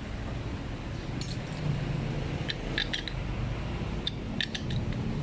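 Small metal clicks and clinks, irregularly spaced, as a metal locking rod and tool knock against a brush cutter's aluminium gearbox and trimmer head while the head is worked loose on its shaft.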